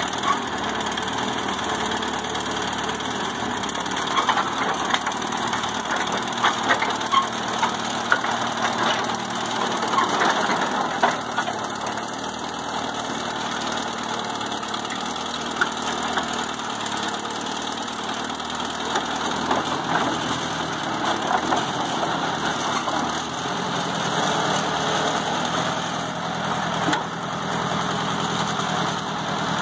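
A vehicle engine idling steadily, with scattered knocks and clatters over it.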